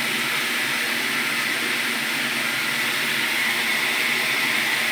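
Water running steadily into the drum of an old Brastemp automatic washing machine as it fills, a constant hiss.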